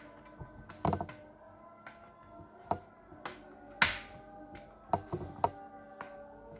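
Plastic clips of a laptop's bottom cover snapping into place as the panel is pressed shut along one side: a series of sharp clicks, the loudest about four seconds in, with a quick cluster near five seconds. Background music plays throughout.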